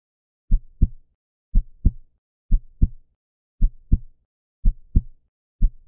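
Heartbeat sound effect: low lub-dub double thumps, six of them about one a second, starting about half a second in.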